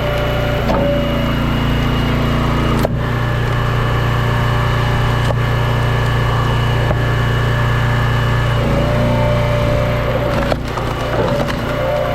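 Gas-engine log splitter running steadily while splitting hickory rounds. Its engine note shifts about three seconds in and again near nine seconds, and there are sharp cracks of splitting wood about three seconds in and again near the end.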